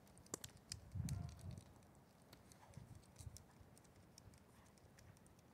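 Near silence with faint footsteps on pavement: a few soft thuds and small scattered clicks.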